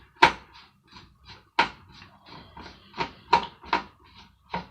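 Irregular sharp knocks and clicks, about six of them, as the parts of a hand air dryer are handled and worked apart with tools.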